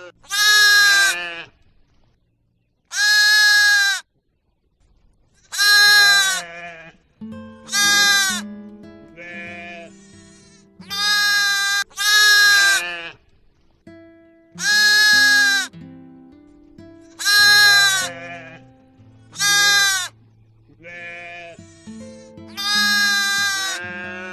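Bleating from a goat or sheep: about ten loud, high calls, each around a second long, repeated with short gaps. Background music plays underneath.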